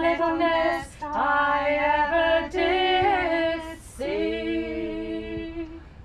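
Several women's voices singing unaccompanied in harmony, in phrases of held notes with short breaks between them.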